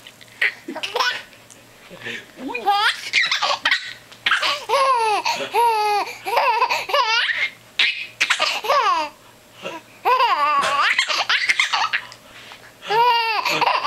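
An infant laughing in several high-pitched bouts of giggles, separated by short pauses.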